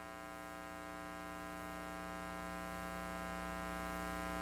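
Steady electrical mains hum from the church sound system, a low buzzing tone with a ladder of even overtones, swelling slightly over the few seconds.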